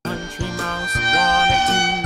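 A children's song playing: bouncy instrumental backing with a sung melody line.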